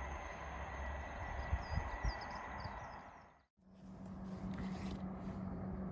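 Open-air ambience: a steady low rumble and hiss, with a few low thumps and faint bird chirps about two seconds in. About three and a half seconds in it cuts out for a moment, then comes back with a steady low hum.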